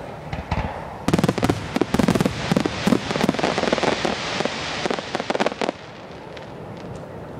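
Fireworks display: a dense run of sharp crackling pops over a hiss begins about a second in. It stops suddenly near six seconds, leaving a faint hiss and a few scattered pops.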